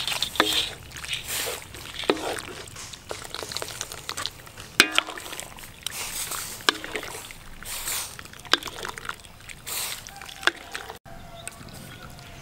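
Boiled pork intestines scooped with a wooden spatula from a wok of hot water into a wire mesh strainer: water sloshing and dripping, with irregular clicks and knocks of the spatula against the strainer and wok.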